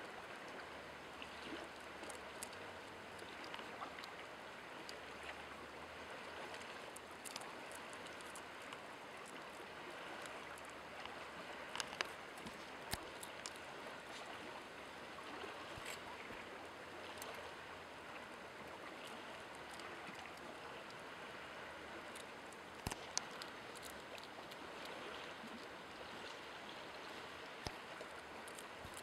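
Faint steady rushing hiss of background ambience, with a few sharp clicks and crackles from a hedgehog chewing and rummaging on sandy ground among twigs.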